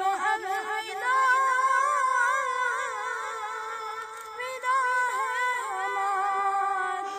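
A boy singing a naat unaccompanied, in a high voice that holds long, ornamented wavering notes.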